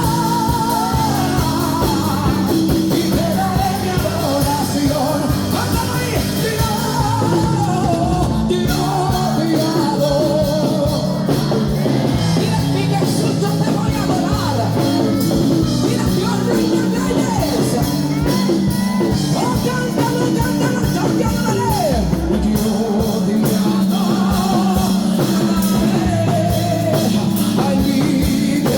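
Live Christian worship music: a full band with drums playing steady chords under a woman's singing voice, which holds long notes with wide vibrato and melodic runs.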